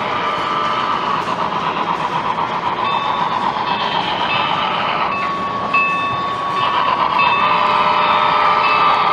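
Model steam locomotive running on layout track toward the camera, louder in the last few seconds as it draws near. About halfway through, a steady whistle tone sounds for about a second and a half.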